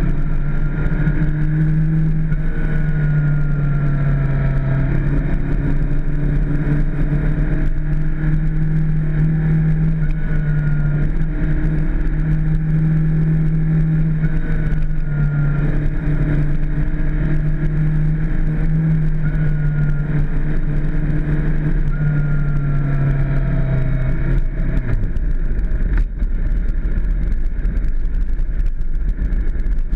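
Suzuki GSX-R600's inline-four engine running at cruising revs under a steady rush of wind. The engine note climbs and eases every few seconds through the bends, then drops away about 25 seconds in as the throttle closes.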